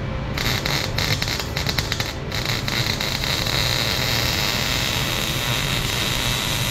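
Arc welding on a car's exhaust downpipe: irregular crackling for the first two seconds or so, then a steady hissing arc.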